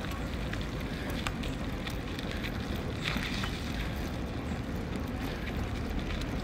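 Wind rushing over the microphone of a bicycle being ridden at moderate speed on a rough road, with tyre noise and scattered light clicks and rattles.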